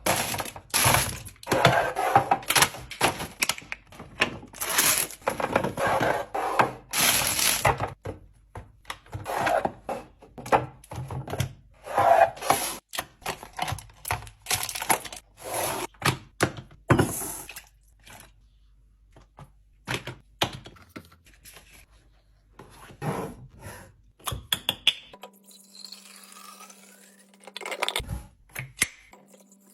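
Fridge restocking: rapid clacks, knocks and rustles of containers and packaging being handled and set down, thinning out in the second half. A low steady hum comes in near the end.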